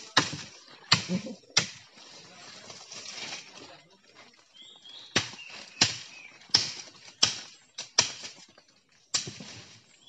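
Machete blows chopping a thin sapling pole: three sharp strikes in quick succession, a pause of a few seconds, then a run of strikes about two-thirds of a second apart and one more near the end.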